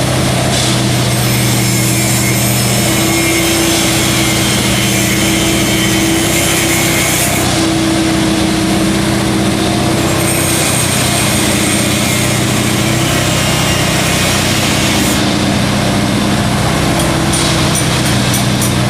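Diesel engine of a railway track maintenance machine running steadily at a constant pitch, with a mechanical rattling hiss over it and a quick run of clicks near the end.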